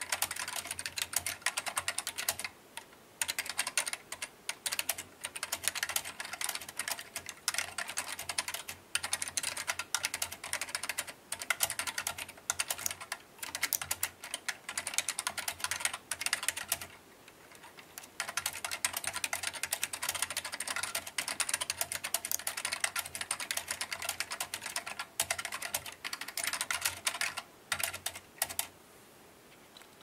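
Typing on a KB Paradise V80 mechanical keyboard with Matias Quiet Click switches, a TEX aluminium case and Tai-Hao double-shot keycaps: a dense, steady stream of key presses with brief pauses about three seconds in and about halfway through, stopping shortly before the end.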